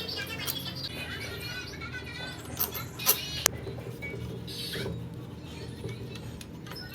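A few sharp metallic clicks and clinks, like tools and pump parts being handled on a bench, about three in quick succession midway. Under them runs a steady low hum, with high wavering chirps in the first couple of seconds.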